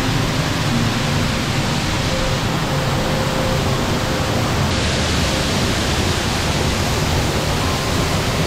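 Sgwd yr Eira waterfall on the River Hepste, heard at close range from the path behind the falling water: a loud, steady rush of water. The hiss grows a little brighter about five seconds in.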